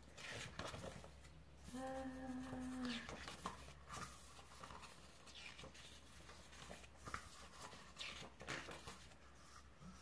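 Pages of a glossy album photobook being turned and handled, with faint paper rustles and ticks. About two seconds in, a short, steady hummed "mmm" of appreciation lasts about a second.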